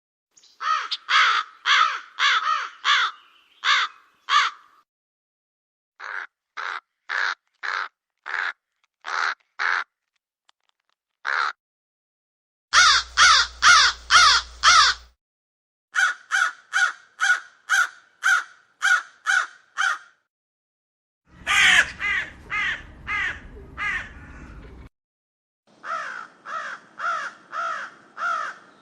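Crows cawing in runs of short, harsh caws, about two a second, in several separate groups broken by short silences. Two of the groups carry a low hum or background noise beneath the calls.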